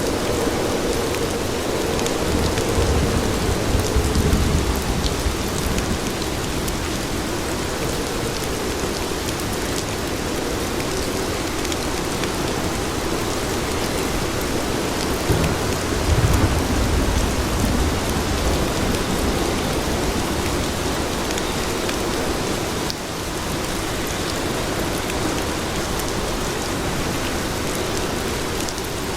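Steady rain falling on city streets, an even hiss throughout. A low rumble swells up twice, a few seconds in and again about halfway through.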